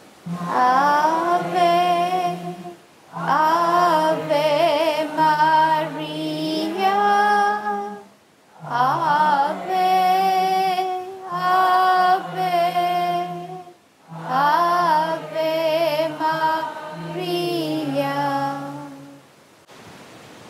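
A woman singing a slow hymn in four long phrases with short breaths between them, over steady low held notes from an accompanying instrument that change with each phrase. The singing stops about a second before the end.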